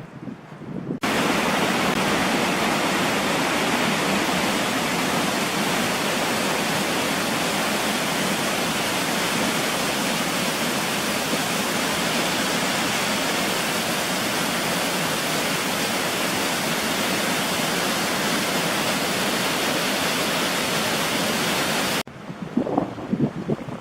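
Steady, even rush of flowing water from a mountain stream. It starts suddenly about a second in and cuts off abruptly near the end.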